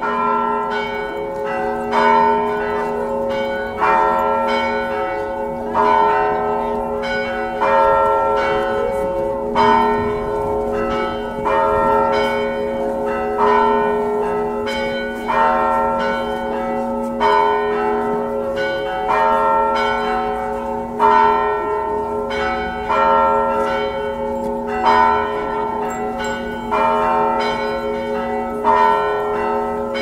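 Several church bells ringing in a steady repeating peal, a stroke about every half second with a heavier stroke about every two seconds, the bells' tones humming on between strikes.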